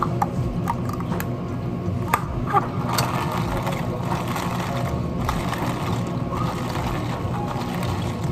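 Steady machine hum of café equipment, with a few sharp clicks and taps as a plastic drink cup and straw are handled, the loudest a little after two seconds in.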